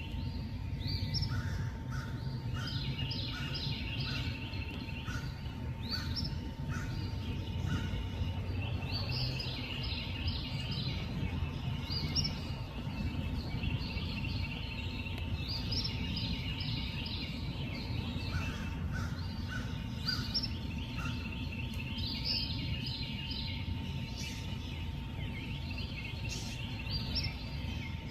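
Night nature ambience: runs of high chirping calls come and go in bursts every few seconds over a low steady rumble, with a faint steady tone underneath.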